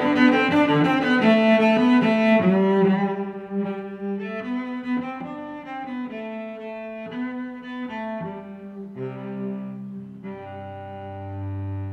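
Instrumental background music, louder for the first three seconds and softer after, with a low held note coming in about nine seconds in.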